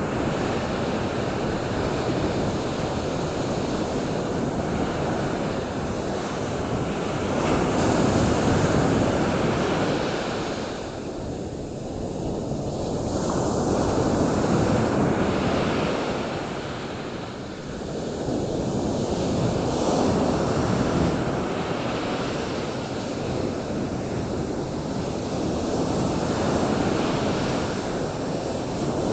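Ocean surf washing in, a steady rushing noise that swells and fades every six seconds or so as the waves come in.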